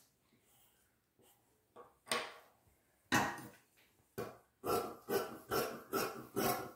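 A dog barking: single barks about two, three and four seconds in, then a faster run of barks near the end.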